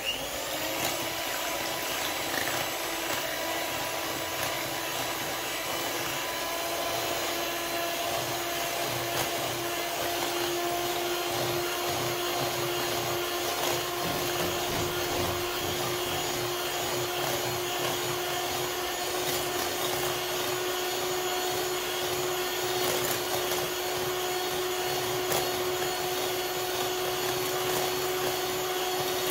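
Electric hand mixer running with a steady motor whine, its beaters whisking a whole egg and egg whites into a foam in a glass bowl.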